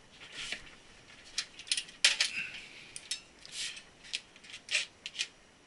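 Handling noise: a string of short clicks, taps and rustles, about a dozen over five seconds, as cables and gear are moved about by hand.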